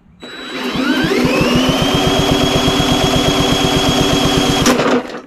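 Yard Machines mower engine being cranked over steadily for a compression test. A whine rises in pitch over the first two seconds and then holds steady over rapid, even pulses, then stops abruptly near the end. The gauge reads just under 65: low compression, which the owner blames on water that got into the cylinder.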